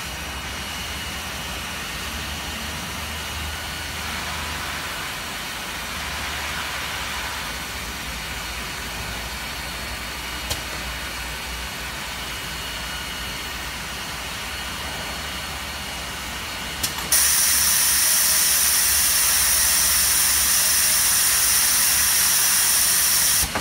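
Steady low machine hum from a pneumatic robot workcell, with a sharp click about ten seconds in. Near the end, after a couple of clicks, a loud steady hiss of compressed air starts abruptly and runs about six seconds before cutting off.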